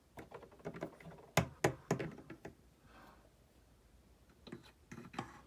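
Small plastic toys being handled, giving a quick run of light clicks and taps, then a few more near the end.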